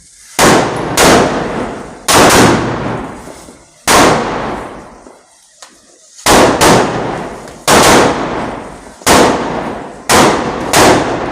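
Aerial fireworks shells bursting overhead: about ten loud bangs, roughly one every second, some in quick pairs, each dying away with a long echoing tail.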